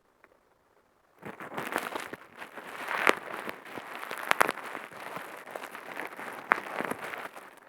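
Bubble wrap being squeezed and twisted, a dense crackle of small bubbles popping, starting about a second in, with three sharper, louder pops among them.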